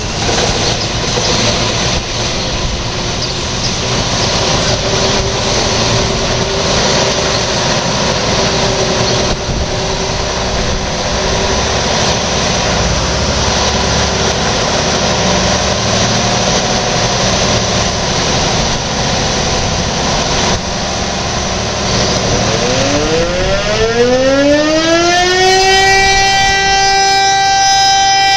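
A heavy vehicle engine, taken to be the fire engine's, runs with a steady rumble. About 22 seconds in, a siren starts up, its pitch rising over about three seconds before it settles into a steady, loud wail.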